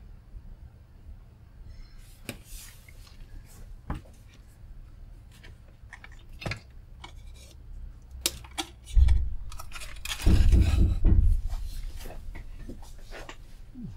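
Clicks and clatter from a handheld oscilloscope and its probe leads being picked up and moved about on a workbench. Heavy bumps come about nine seconds in and again from ten to eleven seconds, and these are the loudest sounds.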